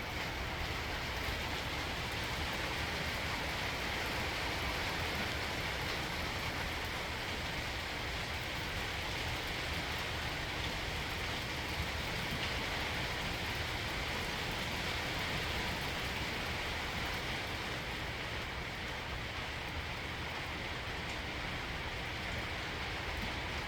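Steady rain falling in a thunderstorm, an even rushing hiss with no thunderclap.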